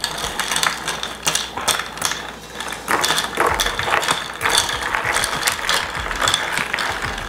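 Ice cubes rattling and clinking against tall glasses as cocktails are stirred with straws, two glasses at once: a dense, uneven run of quick clinks.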